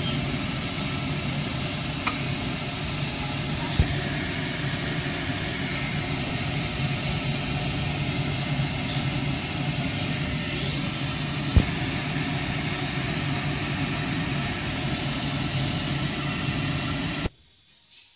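Steady noise of noodles stir-frying in a pan over a low, even hum, with two sharp knocks of the wooden spatula on the pan, about four and about twelve seconds in. The noise cuts off suddenly near the end.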